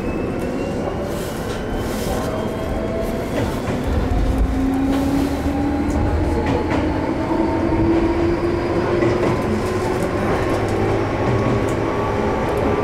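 Ohmi Railway 800 series electric train running, heard from inside the car: a motor whine climbing slowly in pitch as the train gathers speed, over the rumble of the wheels with faint clicks from the rail joints.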